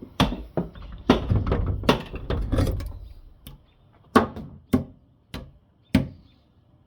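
A series of sharp knocks and thuds, about ten in all, with a low rumble of handling noise under the first few. Four single knocks fall further apart near the end.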